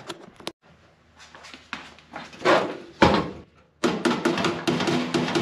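A few scattered knocks and handling sounds, then, about four seconds in, a quick, even run of hammer taps on sheet steel starts. It is a round-edged body hammer knocking back the ledge of a new floor patch panel so it meets the cowl.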